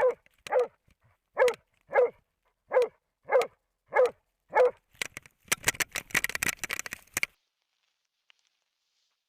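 Moose-hunting dog barking in a steady rhythm, about eight barks roughly half a second apart, followed by a couple of seconds of crackling noise.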